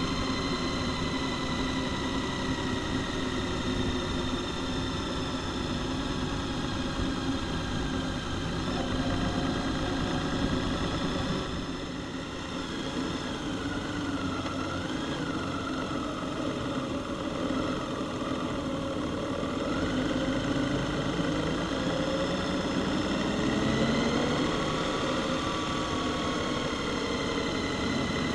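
Honda Gold Wing touring motorcycles riding in a group: steady engine hum with road and wind noise, the engine pitch rising and falling a little around the middle and again near the end.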